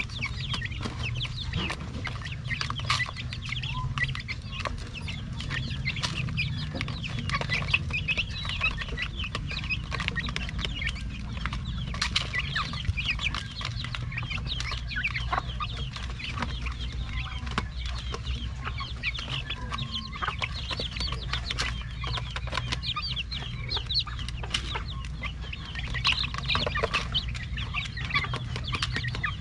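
A flock of young native chickens calling continuously in many short, high peeps while pecking at feed in a bottle feeder's tray, with scattered sharp clicks of beaks on the tray. A steady low hum runs underneath.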